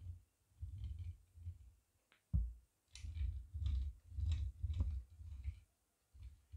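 Die-cast model car pushed by hand, its wheels rolling back and forth on a play mat. It makes stretches of low rumble with light clicks, and there is a sharper knock a little over two seconds in.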